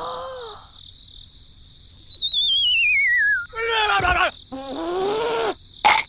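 Cartoon-style sound effect: a warbling whistle slides steadily down in pitch for about a second and a half, then short high, voice-like cries follow.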